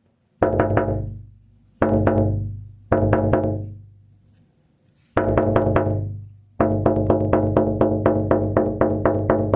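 Music: separate phrases of ringing, percussive struck notes over a deep bass, each dying away, then a fast, even run of repeated hits starting about two-thirds of the way through.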